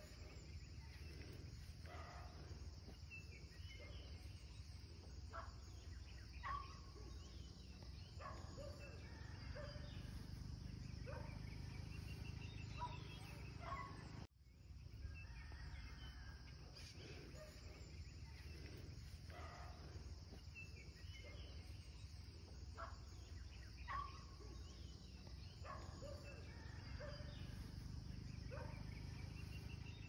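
Faint rural nature ambience: scattered short bird calls and chirps over a steady high insect buzz and a low rumble. About halfway through the sound cuts out for an instant and the same stretch starts over, as a looped recording.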